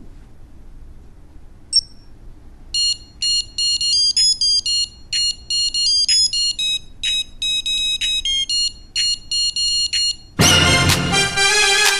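One short electronic beep, then a quick, rhythmic melody of high-pitched digital beeps, like a digital wristwatch playing a tune. About ten seconds in, a loud electro-funk track comes in.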